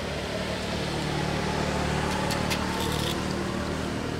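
An engine running steadily with a low, even hum, with a few faint clicks over it.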